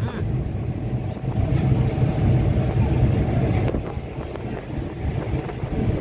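Passenger train carriage running along the line: a steady low rumble with wind noise over it.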